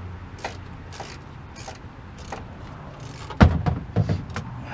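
Socket ratchet on a long extension clicking at intervals while the loosened oil drain plug is backed out, then several loud knocks a little past halfway.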